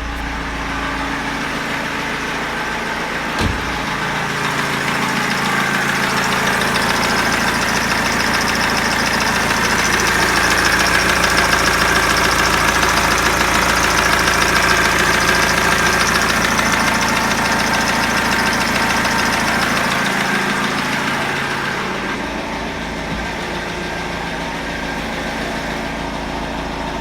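BMW E46 320d's four-cylinder diesel engine running with an abnormal noise that a new timing chain has only partly cured; the owner suspects a crankshaft, rod bearing or hydraulic lifter fault. The engine grows louder a few seconds in and eases back near the end.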